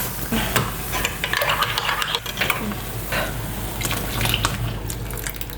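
A spoon stirring a pot of boiling milky ginger tea, scraping and clinking irregularly against the side of the pot.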